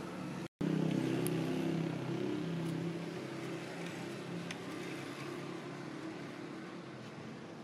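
An engine's low, steady hum, loudest just after a brief cut about half a second in, then slowly fading, with a few faint clicks.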